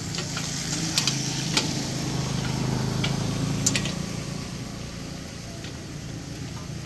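Motorcycle engine passing by on the road, getting louder over the first few seconds and then fading away. A few sharp clicks sound on top of it.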